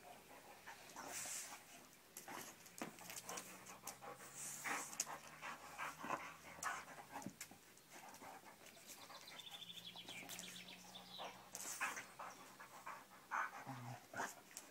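A Vizsla panting as it plays, with irregular scrapes and knocks of a ball and its paws on stone paving.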